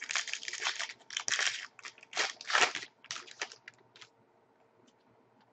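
Foil wrapper of a 2011-12 Upper Deck SPx hockey card pack being torn open and crinkled by hand: a string of irregular crackling rustles that stops about four seconds in.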